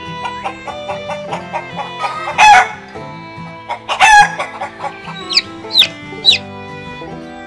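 Recorded chicken calls over background music: two loud chicken calls about two and four seconds in, then three short chick peeps, each falling in pitch, near the end.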